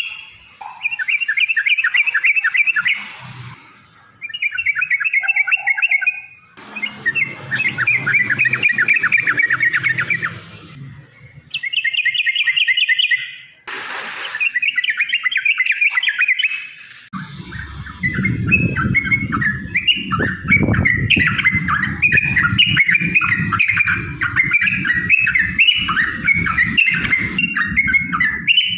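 Yellow-vented bulbul (trucukan) song: short bouts of rapid, bubbly warbled phrases repeated with brief pauses. About two-thirds of the way in it becomes a continuous, dense chattering with a low rumble underneath.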